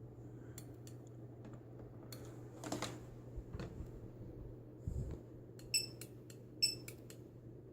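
Clicks and plastic handling of a handheld barcode scanner gun, with two short, high electronic beeps near the end as an item is scanned. A steady low hum underneath.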